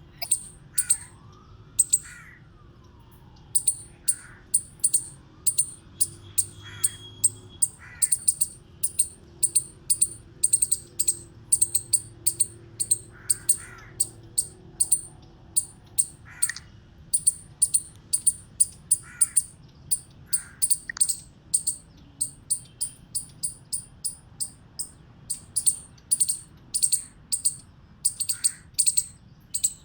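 Eastern chipmunk chipping: a long run of short, sharp, high-pitched chips, about two a second, with a brief pause a few seconds in. Fainter, lower sliding calls come in now and then.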